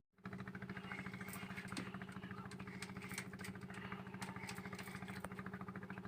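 Small engine idling steadily with an even, rapid pulse, starting just after a sudden cut.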